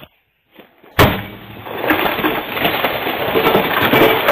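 A sudden loud crash about a second in, then a continuous noisy clatter of smashing and crunching, typical of a forced break-in through glass.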